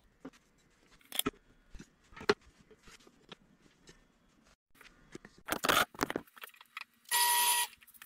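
Thin copper strips handled on a wooden workbench: scattered light metallic clicks and taps, then a quick run of clinks about six seconds in. Near the end comes a loud, steady-pitched buzz lasting about half a second.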